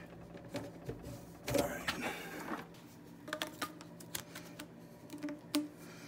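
Scattered light plastic clicks and taps as white plastic sink-drain parts are handled and a slip-joint nut is fitted onto a P-trap.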